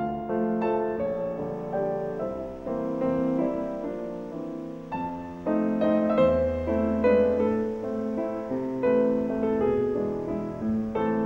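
Background piano music: a melody of struck notes over lower sustained chords.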